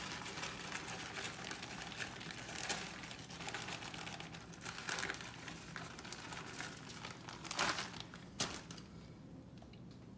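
Plastic bag of brown sugar crinkling as it is squeezed and shaken, with aluminium foil rustling under it; two louder crinkles near the end, then the rustling dies down.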